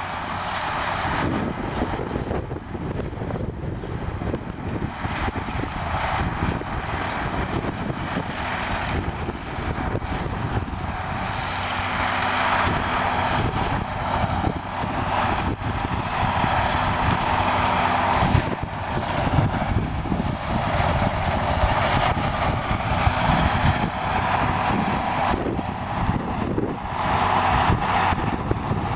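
John Deere 4430 tractor's six-cylinder turbo diesel running steadily under load, pulling a New Holland 851 round baler as it picks up hay. A rushing, rattling machine noise from the baler swells and fades over the engine every few seconds.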